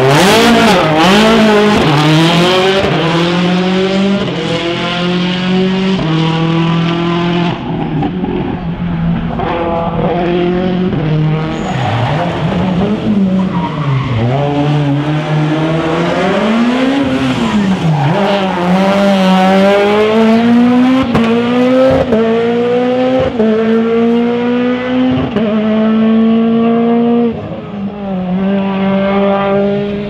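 Peugeot 207 S2000 rally car's engine revving hard, its pitch climbing and dropping again and again as it runs up and down through the gears.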